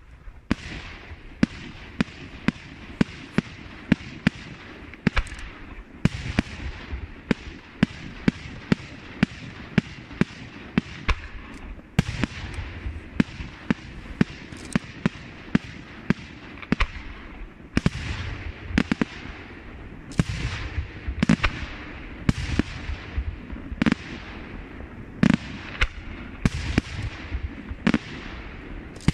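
Aerial firework shells bursting in quick succession at a fireworks display: sharp reports about one a second, each followed by a short fading hiss.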